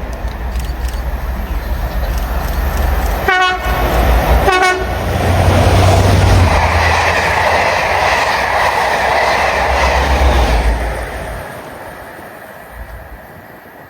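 A train passing at speed gives two short warning blasts on its horn a little over a second apart as it approaches. Then the loud rush and rumble of the train going by fades away near the end.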